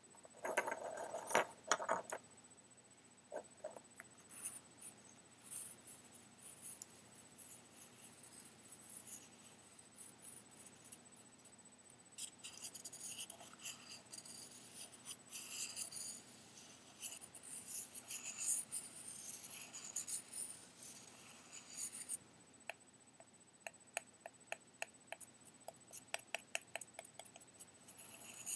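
Small Christmas ball ornaments handled close up: a brief clatter as they are gathered from the pile, then two ornaments rubbed against each other in a long stretch of scratchy rubbing, and near the end tapped together in a run of light clicks.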